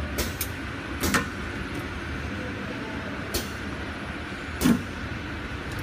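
Rotary premade-pouch packing machine running: a steady mechanical hum under a handful of sharp metallic clacks from its bag clamps and air cylinders as the clamp turntable indexes, the loudest about a second before the end.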